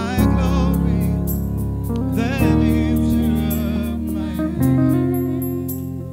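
Live gospel worship music: a man singing with vibrato over sustained keyboard chords, the harmony changing about every two seconds.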